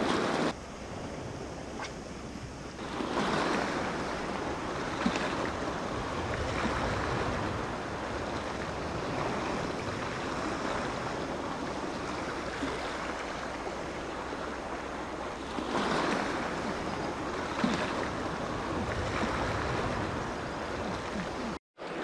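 Sea waves washing onto the shore, a steady surf noise that swells louder about three seconds in and again about sixteen seconds in.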